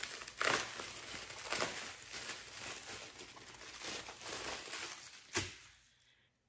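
Plastic bubble wrap crinkling and rustling as it is pulled open by hand, with one sharp crack about five seconds in.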